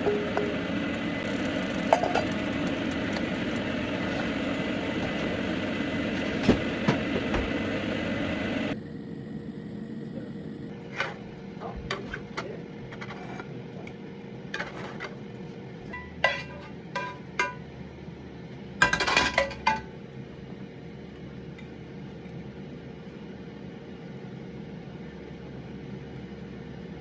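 Kitchen dishes and cutlery clinking: scattered sharp knocks and clinks of crockery and metal, with a denser cluster a little past the middle. A steady background noise cuts out abruptly about nine seconds in.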